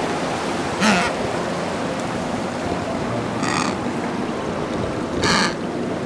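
Penguin giving three short calls, about a second in, midway and near the end, over steady surf noise.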